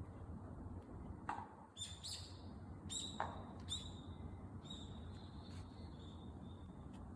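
A bird calling: a run of short, high chirps and a few drawn-out notes, starting about two seconds in and going on until near the end, with two sharp falling notes just before.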